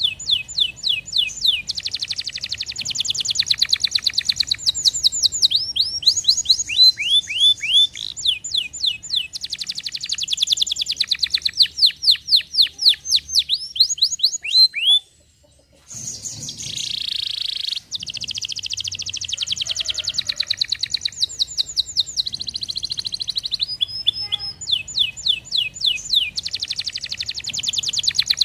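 Domestic canary singing, with rapid trills of repeated downward-sweeping notes that change from phrase to phrase. The song breaks off for about a second about halfway through.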